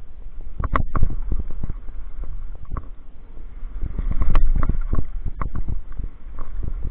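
Downhill mountain bike clattering and knocking over a rough, rocky dirt trail at speed: a run of sharp knocks over a steady low rumble. The hardest hits come about a second in and again around four seconds in.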